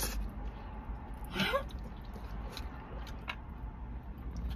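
Eating sounds from chopsticks and a plastic food tub: a few short sharp clicks, with a brief rising vocal sound about a second and a half in, over a low steady rumble.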